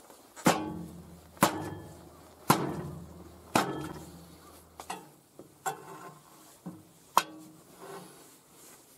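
Heavy hammer striking steel on a mini excavator: four hard, ringing metal-on-metal blows about a second apart, followed by several lighter knocks and clinks.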